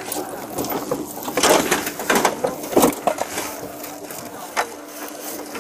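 Clothes and belongings being pulled about and handled by a gloved hand, rustling and crinkling in irregular strokes over a faint steady hum.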